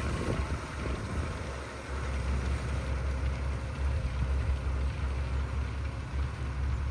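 An engine running steadily with a low rumble, typical of farm machinery at work on hay.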